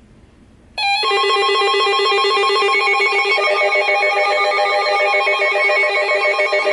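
Emergency Alert System alert tone: a loud electronic warbling tone that starts suddenly just under a second in and holds steady.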